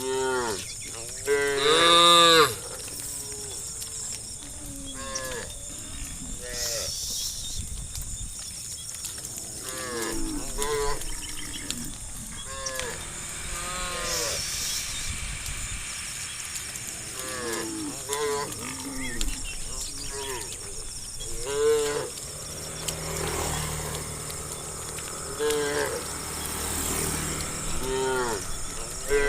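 Several cows mooing over and over, short calls that rise and fall in pitch and sometimes overlap, the loudest about two seconds in.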